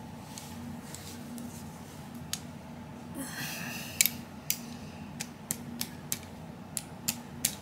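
Cleaning rod with a jag pushing a dry patch through a revolver barrel: a brief scraping rasp about three seconds in, then a string of light metallic clicks and taps, roughly three a second, as the rod works back and forth in the bore.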